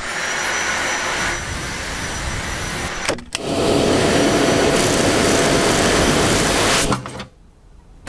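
Dyson V7 Animal cordless vacuum cleaner running steadily with a high motor whine. After a brief break about three seconds in, it runs louder with its motorised mini tool brushing a mattress. It stops about seven seconds in.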